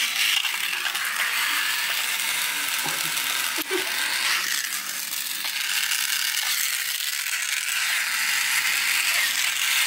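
Battery-powered toy train's small electric motor and plastic gears whirring steadily as the engine runs.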